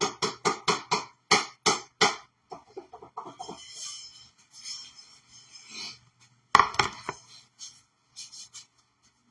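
Hand tapping the bottom of an upturned can of chickpeas, a quick run of sharp knocks about three a second, then softer taps and a stretch of rattling, with a couple of hard knocks about two thirds of the way through and a few light ones near the end.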